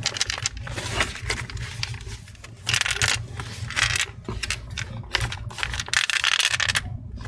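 A small loose piece of snapped plastic rattling and sliding about inside an opened HP Pavilion laptop's chassis as the laptop is tilted and turned, mixed with the scrape of hands on the plastic case. It comes in several bursts of rattling and scraping; the longest lasts about a second, near the end.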